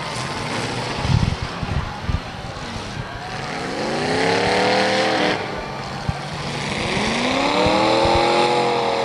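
Demolition derby cars' engines revving hard, rising and falling in pitch twice, with a couple of thuds from cars hitting in the first two seconds.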